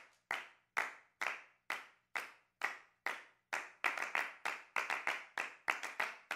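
Rhythmic hand clapping in a steady beat of about two claps a second. From about four seconds in, more claps fall between the beats and the pattern grows busier.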